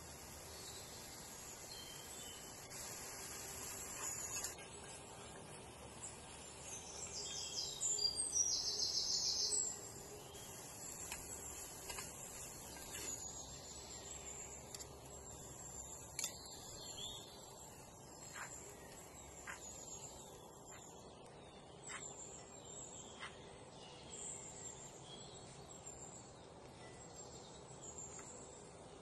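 Quiet kitchen background with birds chirping on and off, including a louder trill about seven seconds in. A few light clicks come from a metal spoon knocking the cast-iron pan as onion and minced beef are stirred.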